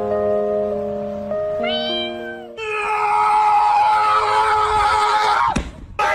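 Domestic cat meowing over background music with sustained notes: a short high mew about two seconds in, then one long drawn-out meow of about three seconds that falls in pitch at the end.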